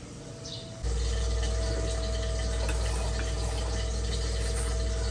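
Steady low mechanical hum with a faint higher tone, starting abruptly about a second in.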